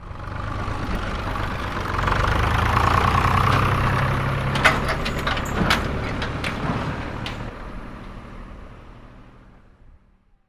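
Tractor engine running at a steady idle, growing louder over the first couple of seconds and fading away over the last few. A few sharp clicks or clanks come through about halfway through.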